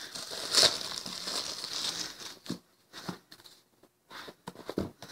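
Plastic shrink-wrap crinkling as it is pulled off a cardboard book box set, for about two and a half seconds. Then a few light taps from handling the box.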